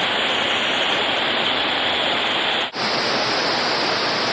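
Steady rush of a mountain stream tumbling over boulders and small waterfalls, broken by a brief dropout about two and a half seconds in, after which the rush goes on with a slightly brighter hiss.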